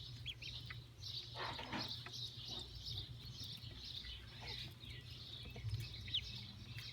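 A brood of days-old ducklings peeping, many short high calls overlapping without a break, over a steady low hum.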